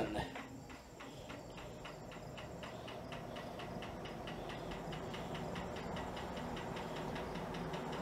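Lesslie Locke spinner ceiling fan spinning up to high speed after a start from off, with a rhythmic ticking that comes gradually faster and a running hum that slowly grows louder. The owner puts the fan's trouble down to stiff new-old-stock bearings, with a stiff spot in the lower bearing.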